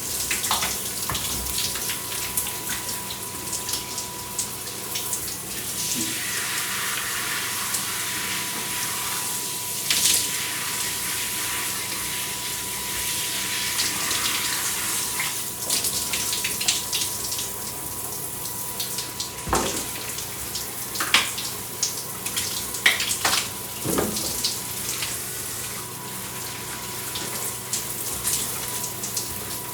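Electric shower running with a steady hiss of spraying water and a faint steady whine, while someone showers under it. Irregular louder splashes and knocks break through the spray a handful of times.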